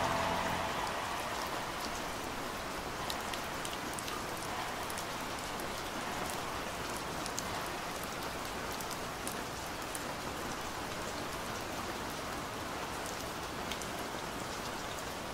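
Steady rain falling, an even hiss of rain with scattered sharper drop ticks.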